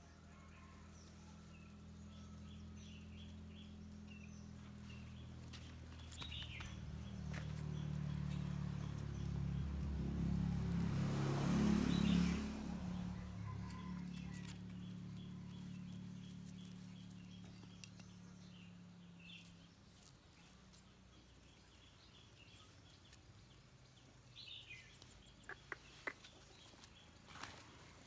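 A passing engine hum that grows louder to a peak about twelve seconds in and fades away by about twenty seconds, with small birds chirping throughout and a few light clicks near the end.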